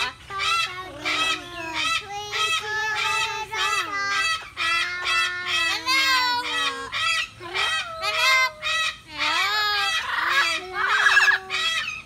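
Amazon parrot singing: a long run of loud, pitched, warbling phrases that slide up and down, separated by short gaps, stopping just before the end.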